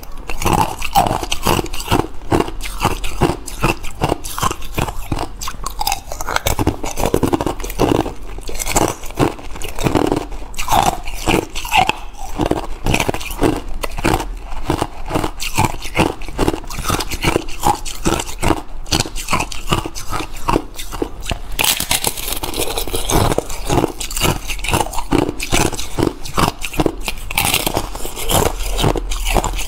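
Hard clear ice being bitten and crunched between the teeth, a dense, continuous run of sharp cracks and crunches as the pieces are broken and chewed.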